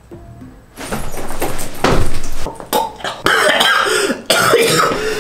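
A man coughing hard, a string of harsh, loud coughs starting about a second in, set off by the fumes of a very hot chili seasoning powder catching in his nose and throat.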